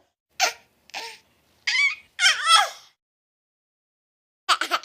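Baby laughing in short, high-pitched squealing bursts. After a pause of about a second and a half, a quick run of giggles comes near the end.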